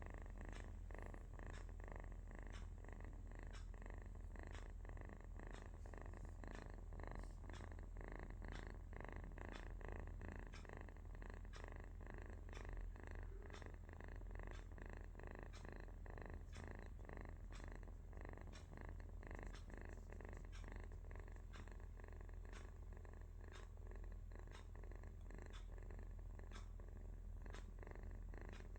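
Sleeping kitten purring: a faint, steady low rumble that pulses about twice a second.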